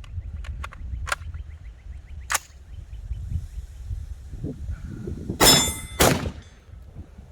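Two handgun shots about half a second apart, the first followed by a metallic ringing, after a few lighter clicks and knocks earlier on.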